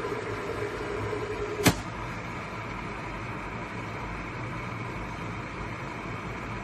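Electric kettle heating with a steady hiss and a low hum. About a second and a half in, one sharp click cuts the hum off as the kettle switches itself off, and the hiss of the hot water carries on.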